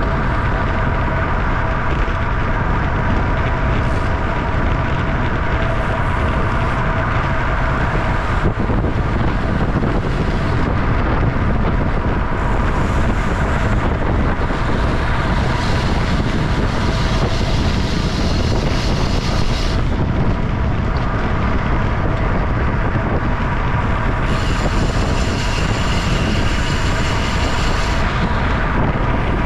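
Wind rushing over the microphone of a bicycle-mounted camera at about 25 mph, a steady heavy rush with a faint steady whine underneath.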